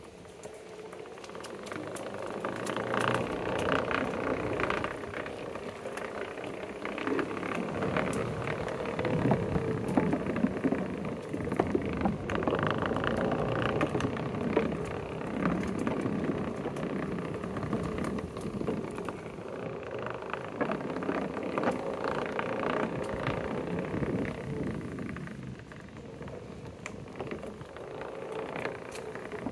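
Onewheel Pint X electric board rolling along a plank boardwalk: its tyre gives a continuous rumble over the boards, with a rapid patter of clicks from the plank joints. The rumble swells and eases as it goes and drops off somewhat near the end.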